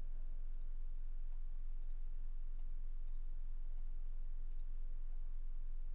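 Computer mouse button clicking, about four faint single clicks spaced a second or so apart, over a low steady hum.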